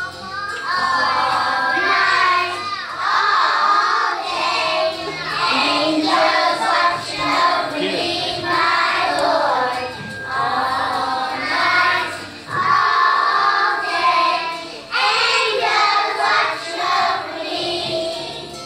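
Young children singing a song together.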